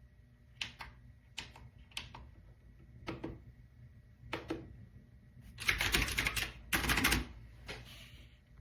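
Typing on a mechanical keyboard with clicky blue switches: separate keystrokes about once a second, then two quick, louder flurries of clattering keystrokes about two-thirds of the way in.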